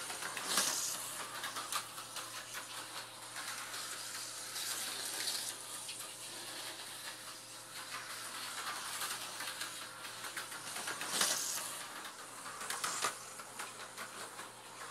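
HO scale Tyco slot car with a 440x2 chassis running laps on plastic track: a steady hissing whir with fine rattling clicks, swelling louder as it comes past about half a second in and again around eleven and thirteen seconds.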